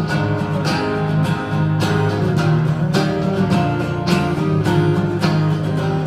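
Acoustic guitar strumming chords in a steady rhythm, about two strums a second, in an instrumental stretch between sung lines of a song.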